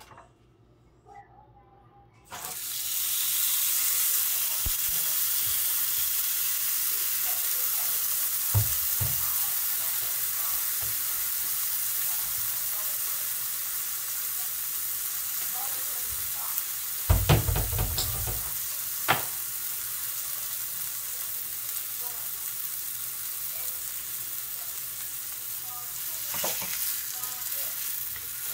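Dry-aged ribeye steak hitting hot oil in a cast-iron skillet: a loud sizzle starts suddenly about two seconds in and carries on steadily, easing slightly over time. A few short knocks come around the middle.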